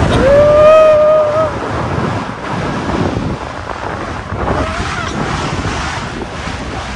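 Rushing wind on the microphone and snow hiss as a snow tube slides fast downhill, with a long held yell just after the start and a shorter shout about four and a half seconds in.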